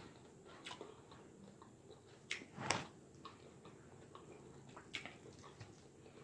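Faint, scattered clicks and taps of a fork against a clear plastic salad bowl as salad is picked up, a few seconds apart, with one louder knock about two and a half seconds in.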